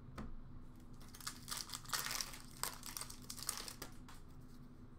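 The wrapper of an Upper Deck hockey card pack being torn open and crinkled, in a run of irregular crackling bursts from about a second in until near the end.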